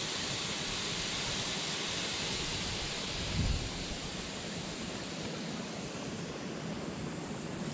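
Steam hissing steadily from a fumarole, a steam vent among rocks in a geothermal field, with a brief low bump about three and a half seconds in.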